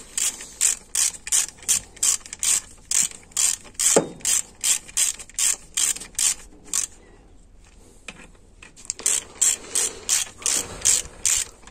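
Hand ratchet clicking in even runs of about three clicks a second as it snugs down the transmission's retainer and housing bolts before they are torqued. The clicking stops for about two seconds past the middle, then starts again.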